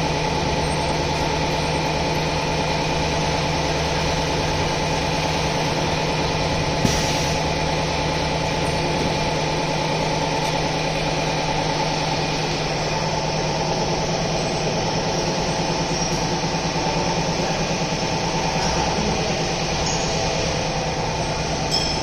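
Automatic paper core cutting machine running, a steady electric motor hum, with a single sharp click about seven seconds in.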